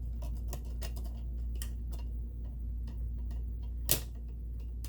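Light, irregular clicks and taps from fitting a presser-foot attachment and its screw on a Kenmore sewing machine, with one sharper click about four seconds in, over a steady low hum.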